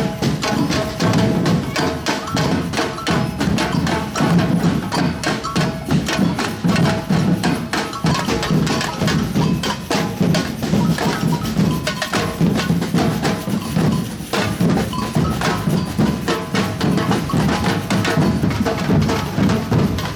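Batucada samba percussion band playing: drums beat out a low pulse, with dense, fast, sharp strikes layered over it.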